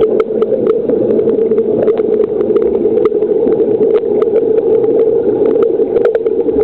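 Steady hum of a swimming pool heard underwater, with many short, sharp clicks scattered throughout.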